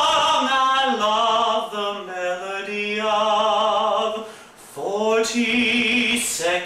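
A man singing a show tune unaccompanied, holding long notes with vibrato. He pauses for a breath about four and a half seconds in, then starts a new phrase.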